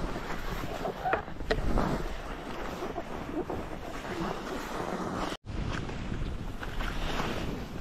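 Skis hissing and scraping over packed and chopped-up snow on a downhill run, with wind rushing over the microphone and a few short crunches early on. The sound cuts out for an instant about five seconds in.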